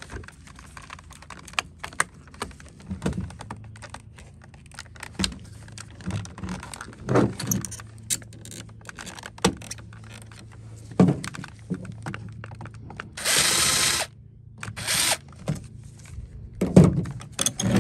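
Plastic housing of a Bissell CrossWave cordless floor cleaner being handled and pried apart: scattered clicks, knocks and plastic snaps. About two-thirds of the way in come two short, harsh bursts of noise, one lasting about a second and a briefer one just after, and a sharp knock comes near the end.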